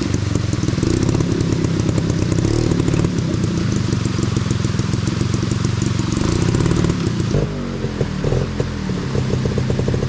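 300cc two-stroke dirt bike engine running on the throttle. About seven seconds in the revs drop and it settles to a slower, steady idle.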